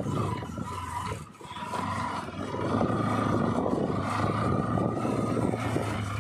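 Motorcycle engine running under way, with wind noise on the microphone; it eases off about a second in, then picks up again and runs steadily.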